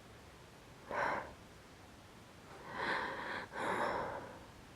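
A woman's hitching breaths as a pepper-induced sneeze builds and does not come. There is one short breath about a second in, then two longer ones around three and four seconds.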